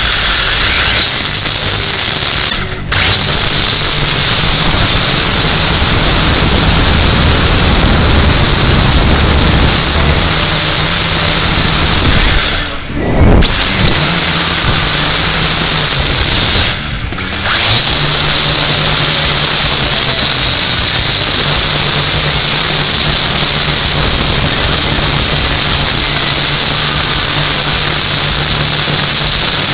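Motors and propellers of a UDI 818A toy quadcopter drone whining loudly, picked up by the drone's own onboard camera; the high whine drifts up and down in pitch with throttle and dips briefly three times.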